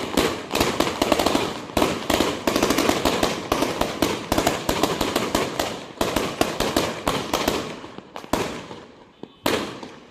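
Firecrackers going off in a rapid, dense crackle of bangs that thins out in the last couple of seconds, with a final burst just before it stops.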